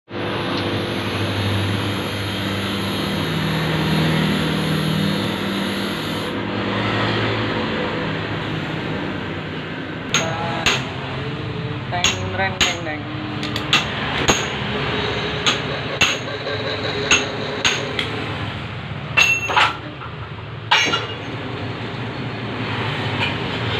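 Steady machine hum in a lathe shop, with a high whine over it for the first six seconds. From about ten seconds in, a dozen or more sharp metal clinks and knocks come at irregular intervals as tools and wrenches are handled at the lathe's tool post.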